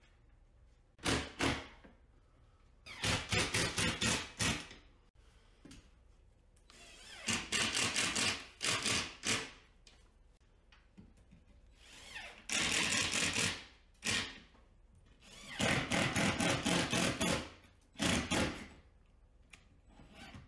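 A cordless 12-volt drywall impact driver drives 1¼-inch coarse-thread drywall screws through a ceiling drywall patch into the wood framing. It hammers rapidly in about six short runs of one to two seconds each, one run per screw.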